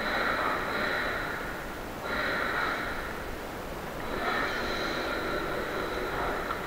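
A person breathing close to the microphone: a few long, noisy breaths with short pauses between them.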